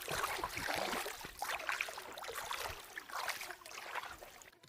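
Water splashing and trickling in irregular surges, cutting off abruptly just before the end.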